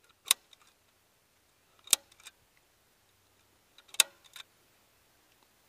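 Hand staple gun firing three times, about two seconds apart, driving T50 staples through outdoor carpet into a wooden boat-trailer bunk. Each shot is a sharp snap followed by a fainter click.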